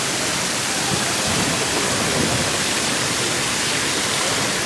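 Large ornamental fountain, the Monument aux Girondins fountain, with water splashing steadily over its rockwork into the basin in a constant, even rush.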